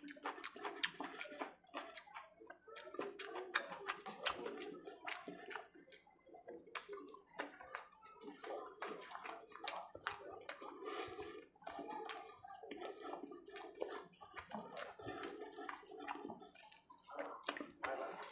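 Close, wet eating sounds: fingers squishing and mixing khichdi rice on a steel plate, and chewing with many small irregular clicks and smacks.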